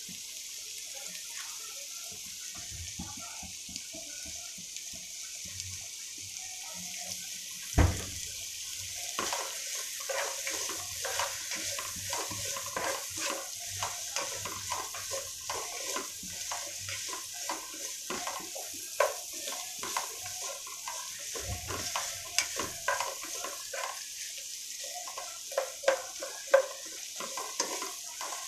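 Sliced onions and green chillies sizzling in oil in a non-stick pan, a steady frying hiss as they are sautéed until translucent. From about nine seconds in, a plastic spatula scrapes and taps against the pan as they are stirred, with a knock just before that and another a little past the middle.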